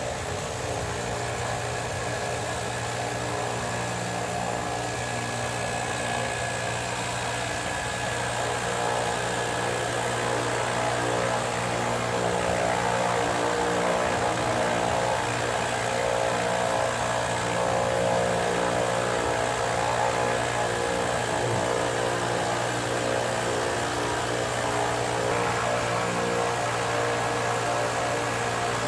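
Propeller plane's engines idling on the ground, a steady low drone with even tones above it that grows a little louder about a third of the way through.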